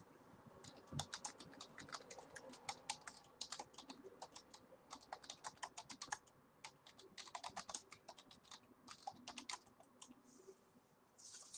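Typing on a computer keyboard: irregular runs of quick key clicks with a short pause in the middle, stopping near the end.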